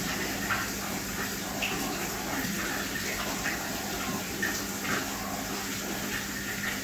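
Aquarium water running and bubbling steadily, with small irregular splashy ticks and a steady low hum underneath.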